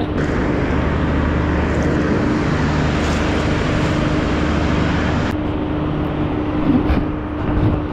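Steady vehicle engine and traffic noise: a loud, even rushing drone with a constant hum underneath.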